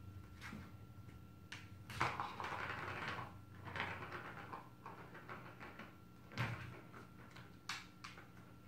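Plastic ball-track cat toy knocked about by a kitten's paws: scattered clicks and knocks on the plastic, with a ball rattling round the track for about a second and a half starting two seconds in.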